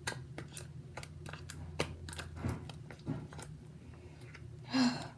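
Sticky glue slime being stirred and worked, giving irregular wet clicks and squelches as it pulls apart; it is only partly activated and still gluey. A brief breathy vocal sound comes near the end.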